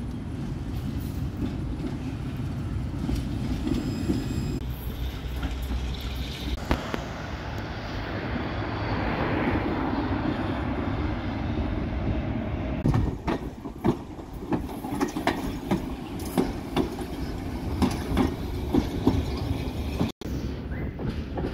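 71-623 low-floor trams running past on street track, a steady rolling rumble. In the second half, a run of sharp clacks and knocks comes from the wheels on the rails.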